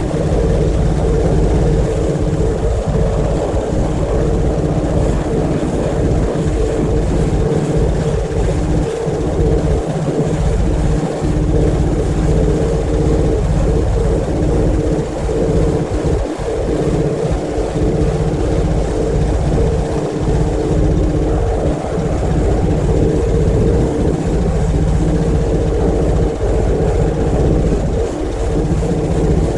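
Pressure washer running steadily, its motor humming under the hiss of the spray.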